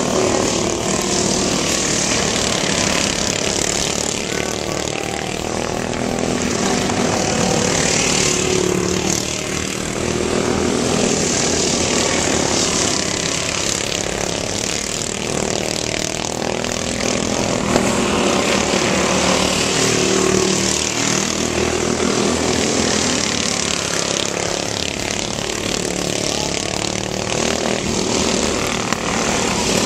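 Several racing lawn mowers' small engines buzzing together as they lap a dirt track, their pitch rising and falling as they speed up, slow for the turns and pass by.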